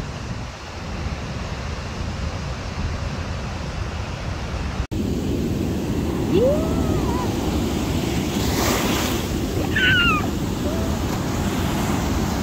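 Ocean surf breaking and washing up the sand, with wind buffeting the microphone. A few short, high gliding calls come through over the surf in the second half.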